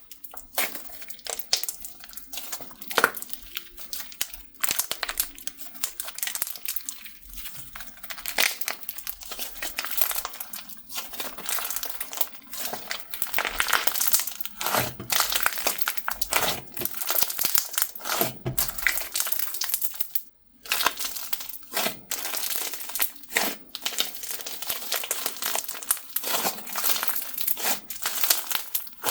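Hands squishing, poking and stretching a slime mixed with clay, giving a dense, irregular run of sticky crackles, clicks and pops. The sound breaks off for a moment about twenty seconds in.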